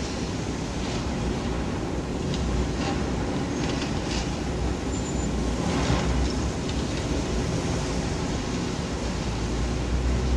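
Steady low rumble of a demolition excavator's diesel engine, with scattered short cracks and clatters of concrete and debris. The sharpest comes about six seconds in.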